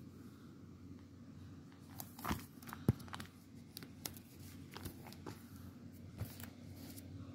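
Plastic pocket pages of a trading-card binder crinkling and clicking as the binder is handled and its pages turned: a string of short rustles and taps, the sharpest about three seconds in.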